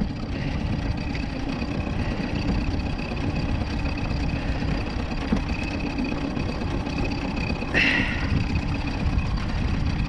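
Wind buffeting the microphone over choppy lake water slapping against the boat, a steady low rumble with a faint steady high tone above it. A brief louder rush about eight seconds in.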